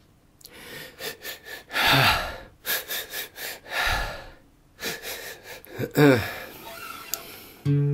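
A man's breathy gasps and sighing exhalations, with two falling-pitch vocal sighs, one about two seconds in and one near six seconds, and a soft low thud in between. Just before the end an acoustic guitar chord is struck and rings.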